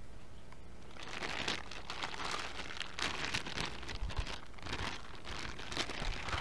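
Clear LDPE plastic bag crinkling as gloved hands handle it and pull a device out of it. The crackling is irregular and starts about a second in.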